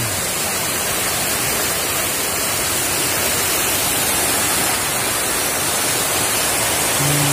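Water of a rocky mountain stream pouring over small cascades: a steady, even rush.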